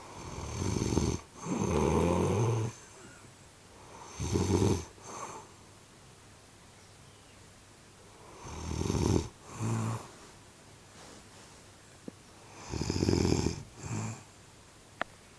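A woman snoring loudly with a gargling rattle: four snores about four seconds apart, each in two parts, a longer one followed by a shorter one.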